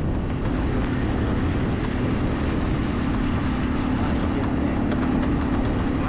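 Motorbike engine running at a steady speed while riding, with a steady drone and wind rushing over the microphone.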